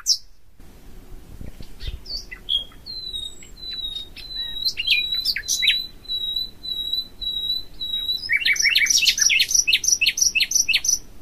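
Songbirds singing: scattered chirps, then a run of evenly spaced short whistled notes at one pitch, then a dense burst of rapid chirping from about eight seconds in.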